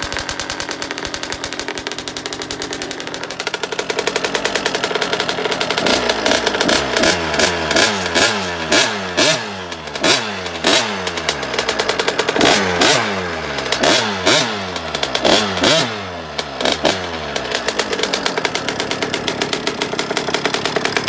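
KTM 50's small two-stroke engine warming up: a steady idle, then from about five seconds in a run of quick throttle blips, the pitch falling back after each one, before it settles to idle again near the end.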